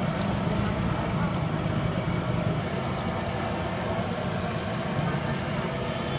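Aloo bondas deep-frying in a kadhai of hot oil: a steady sizzle and crackle over a low rumble.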